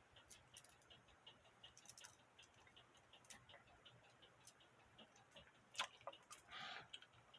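Faint, steady ticking of a cuckoo clock movement's escapement, about three ticks a second, with one louder click near the end.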